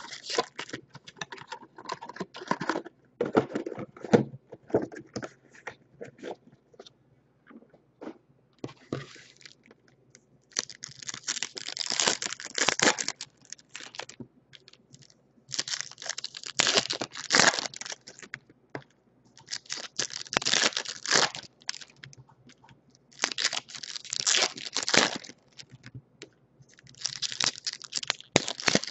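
2019 Bowman Chrome trading-card pack wrappers being torn open one after another with crinkling. Scattered crinkles and clicks of handling come first, then about five long tearing rips spaced a few seconds apart in the second half.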